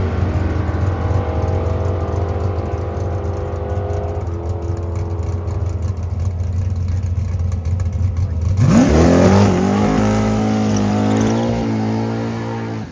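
Drag racing car's engine running at a steady rumble, then revving up sharply about nine seconds in as it accelerates hard, the pitch rising and then holding high and wavering. It stops abruptly near the end.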